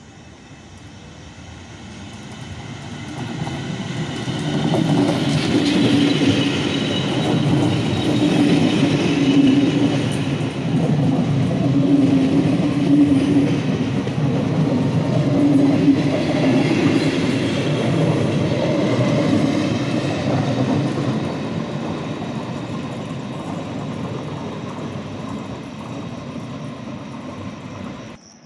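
Regional passenger train running along the platform track. The wheel-and-rail running noise builds over the first few seconds, stays loud for about a quarter of a minute, then fades, and it cuts off suddenly near the end.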